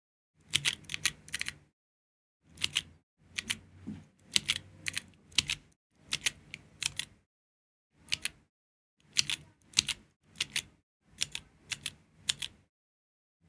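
Chorded keystrokes on a Georgi stenographic keyboard: irregular bursts of a few sharp key clicks at a time, as each steno chord is pressed and released, with short pauses between strokes.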